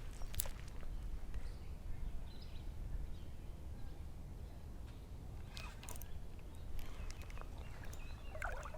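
Open-air ambience on a lake: a steady low rumble with a few faint clicks and a brief high chirp.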